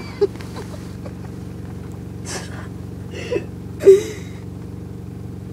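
Steady low hum inside a car cabin, with a few short breathy gasps, the loudest about four seconds in.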